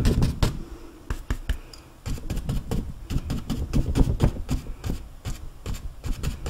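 Flat bristle paint brush dabbing and tapping on a stretched canvas, a quick run of soft thumps and bristly scratches, several a second, thinning out for a moment near the start.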